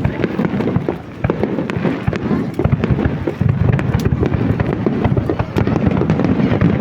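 Fireworks display: a dense, continuous barrage of rapid crackling pops and bangs over a low rumble, getting a little louder about halfway through.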